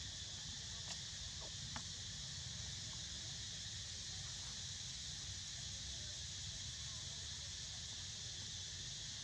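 Steady high insect drone from an outdoor insect chorus, with a low rumble underneath. A couple of faint clicks about one and two seconds in.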